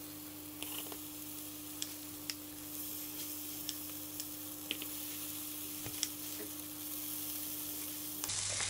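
Oat fritter batter sizzling faintly as spoonfuls are laid into a dry, oil-free pancake pan, with scattered light clicks of a spoon against the glass bowl and pan. A steady hum sits under it.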